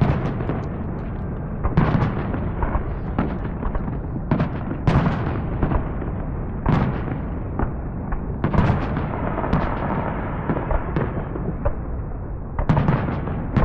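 Fireworks going off: a string of sharp bangs and booms, roughly one every second or two, over a continuous rumble and crackle of more shells bursting.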